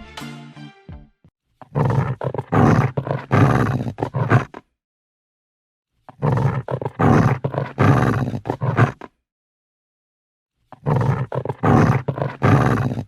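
Angry, agitated dog growling in three bouts of about three seconds each, separated by short silences. A plucked musical intro fades out in the first second.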